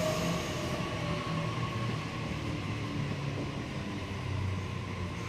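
Sydney Trains Waratah Series 2 electric double-deck train coming to a stop at the platform, with a steady low rumble and a faint traction-motor whine that eases slightly lower as it slows.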